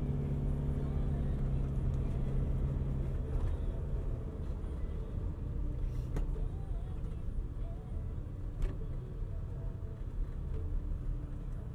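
Car in motion heard from inside the cabin: a steady low engine and tyre rumble on a concrete road. Two sharp knocks come in the second half.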